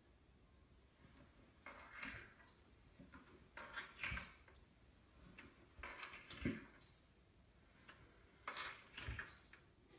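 A cat's body sliding and bumping down wooden stairs. The sound is faint and comes in four bursts of scuffs and soft thumps, about every two and a half seconds, each with a short high squeak.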